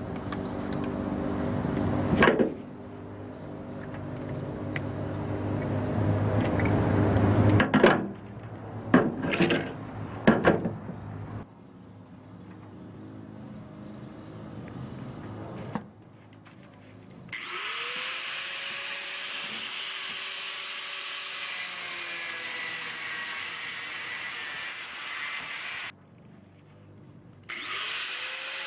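Electric power tool cutting scrap from an air-conditioner radiator, its motor labouring under changing load with several sharp metal knocks. Later a higher-pitched motor whine spins up, runs steadily, cuts off abruptly and spins up again near the end.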